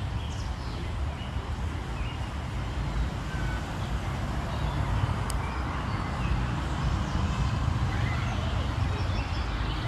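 Scattered faint bird chirps over a steady low rumble that is the loudest sound throughout.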